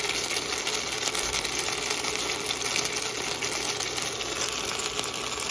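Gyoza sizzling in oil and water in a nonstick frying pan on an induction cooker at high heat: a steady, dense crackle with a low steady hum underneath.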